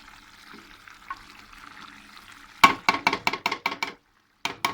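Squid in sauce sizzling softly in the pan. About two and a half seconds in, a metal spoon knocks rapidly against the pan, about seven quick ringing taps a second. The tapping breaks off and starts again briefly near the end.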